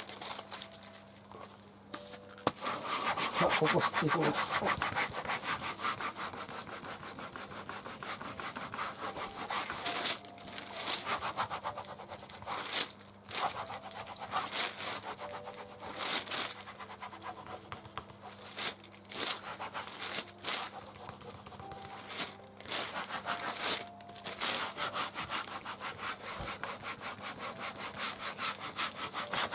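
Japanese baren rubbing rapidly back and forth over paper laid on an inked end-grain wood-engraving block, hand-printing the impression. The strokes start a couple of seconds in and run on, broken by a few brief pauses.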